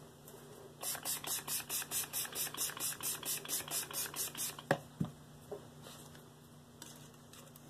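Spray bottle squirting water onto a Shapton Pro whetstone to wet it before sharpening, in a quick run of short hissing squirts, about six a second for some three and a half seconds. A couple of sharp knocks follow.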